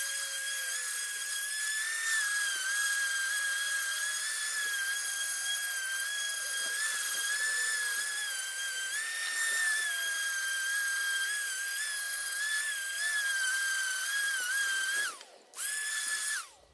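Ryobi random orbital sander running under load on a weathered hardwood fence post, a steady high whine that wavers slightly in pitch as it is pushed along the timber. Near the end the whine falls away, comes back for about a second, then winds down again.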